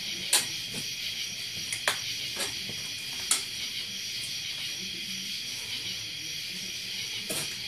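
Steady high-pitched chorus of night insects, with four sharp knocks spread through, the loudest about half a second in.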